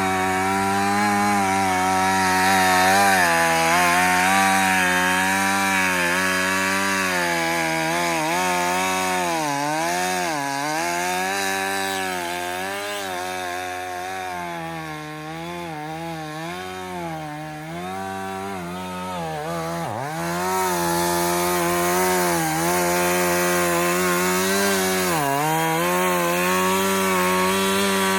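Two-stroke gas chainsaw, a Husqvarna Rancher 450, running at high revs and cutting into wood. Its pitch dips again and again as the chain bogs under load. It is somewhat quieter through the middle stretch.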